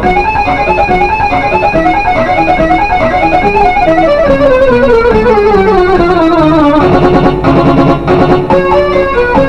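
Instrumental background music: a melody of quick notes, with a long falling run of notes in the middle.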